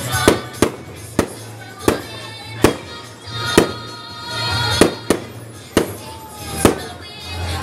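Aerial fireworks shells bursting, about a dozen sharp bangs at irregular intervals, over music playing in the background.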